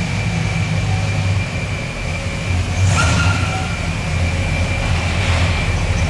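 1966 Buick Wildcat Gran Sport's 425 cubic-inch V8 running at low speed as the car rolls past, a steady low rumble that swells slightly about three seconds in and again near five seconds. A short high squeak comes about three seconds in.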